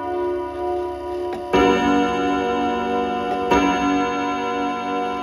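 Kienzle wall clock's chime rods struck by felt-tipped hammers, as the clock strikes the hour after being set to 10 o'clock. There are two strikes about two seconds apart, each left ringing with many overlapping tones.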